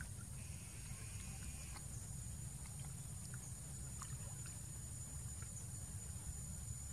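Faint splashing and lapping of water as macaques swim and tussle in a pool, with scattered small clicks, over a steady low rumble and a thin steady high tone.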